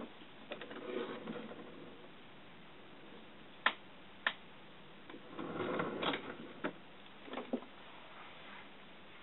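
A kitten's paws and claws scrabbling on a woven rug and batting at a small toy: soft scuffling rustles with a few sharp clicks, the loudest two close together in the middle.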